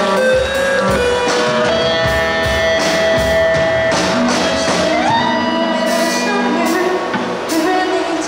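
Live rock band playing, guitar to the fore over bass and drums, with a long held melody note that slides up to a higher held note about halfway through.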